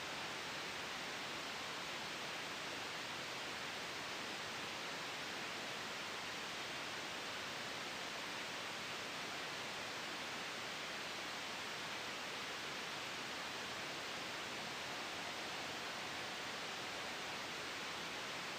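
Soft synthetic white noise for sleep and noise masking: a steady, even hiss with no swells, breaks or other sounds.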